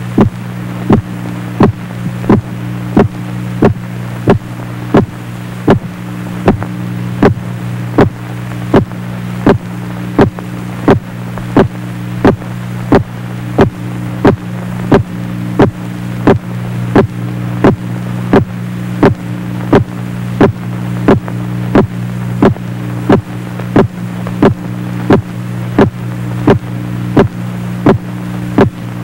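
A steady low electronic hum with a sharp tick repeating evenly, about three ticks every two seconds.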